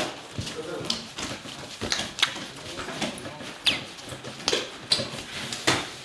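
A series of irregular sharp knocks and clacks, roughly one a second, some followed by a short high squeak that falls in pitch.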